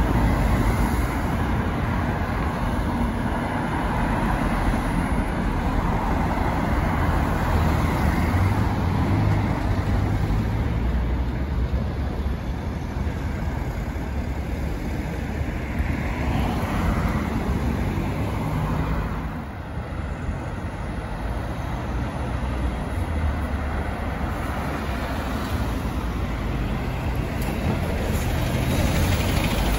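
Road traffic of London red double-decker buses and cars driving past: a steady mix of engine hum and tyre noise. It grows louder near the end as a bus passes close by.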